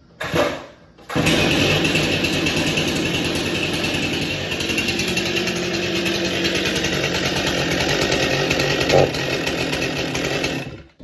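Stihl MS 261 C chainsaw, a 50cc two-stroke, being started: a brief burst, then about a second in it catches and runs steadily and loudly, at idle, before cutting off sharply near the end.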